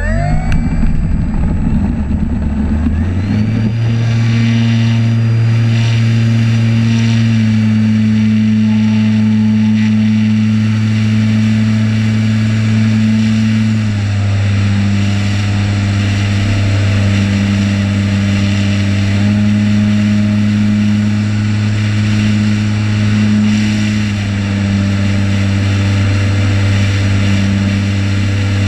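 Electric motor and propeller of a RocHobby Waco RC biplane, heard at close range from a camera on its top wing, running at high throttle with a steady drone and wind hiss. The pitch steps down about seven seconds in and again about halfway through as the throttle is eased after takeoff.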